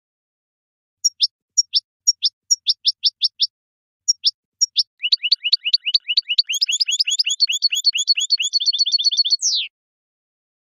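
European goldfinch song from a song-training recording: spaced single notes, each a quick downward sweep, then from about five seconds a fast run of rapid descending notes that ends in one longer downward sweep.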